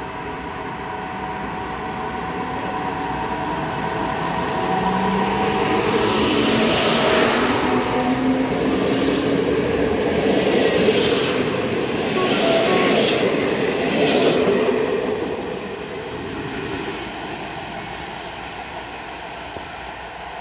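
PKP Intercity EU160 (Newag Griffin) electric locomotive hauling a passenger train, accelerating away from a station stop as it passes close by. A faint rising whine comes in as it picks up speed, then the coaches' wheels run and clatter over the rails, loudest midway, and the sound fades as the train draws away.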